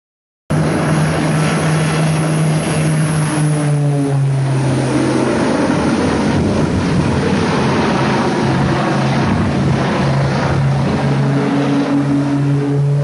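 Aircraft engine drone, a steady low hum with two held tones under a noisy rush, from a plane flying low overhead; it starts suddenly about half a second in.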